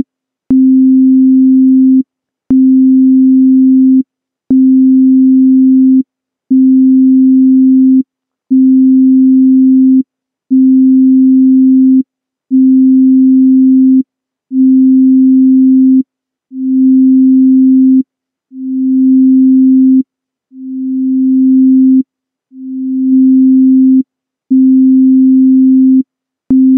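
A pure sine-wave C note from Ableton Live's Operator synth, repeating about once every two seconds. The early notes start at full volume with a slight click. Past the middle, the envelope's attack time is lengthened so the notes swell in slowly instead of coming on all at once, and near the end they start sharply again.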